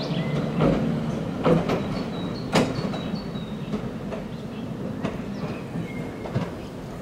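Electric railcar of the Rittner Railway running away along the track, its wheels giving a few sharp clacks over rail joints, the loudest about two and a half seconds in, with the running noise fading as it moves off.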